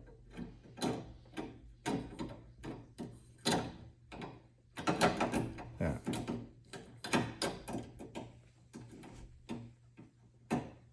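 A tool working the small set screws of a metal sauna door handle: a string of irregular metal clicks, knocks and short scrapes, busiest about five seconds in.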